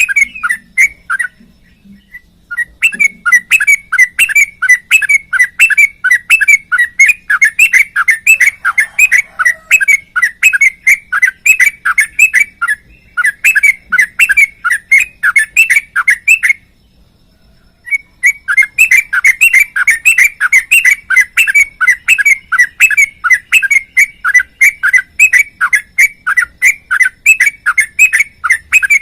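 Yellow-vented bulbul (trucukan) singing in long, fast runs of short chirpy notes, breaking off twice for about a second.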